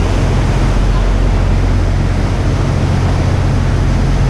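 A boat's engine drones steadily under the rush of water and wind noise on the microphone.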